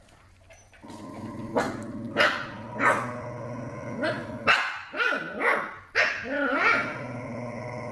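A dog barking and growling in play, in about eight short bursts, over a steady low hum that comes in about a second in.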